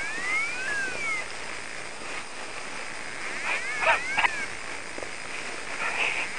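An animal's high-pitched whining calls that slide up and down in pitch, several in about the first second and another cluster around four seconds in, with a few sharp clicks mixed in.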